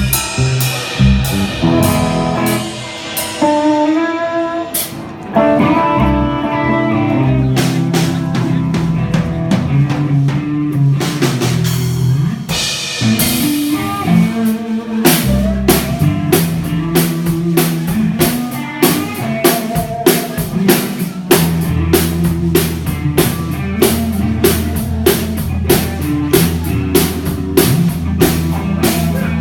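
A rock band playing live with no vocals: an electric guitar picks out a melody at first, then a drum kit comes in with quick, even hits, and a steady bass line joins about three-quarters of the way through.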